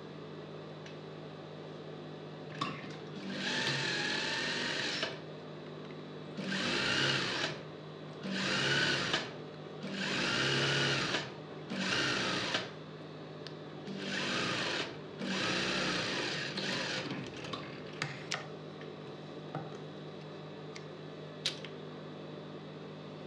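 Industrial sewing machine stitching a seam in about seven short stop-start runs of a second or two each, its pitch rising and falling with speed. A steady low hum sounds between the runs, and a few sharp clicks come near the end.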